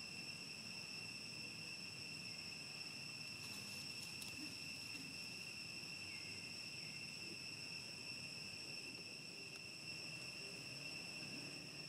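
Steady high-pitched insect drone, one unbroken tone with overtones, with a few faint clicks about four seconds in.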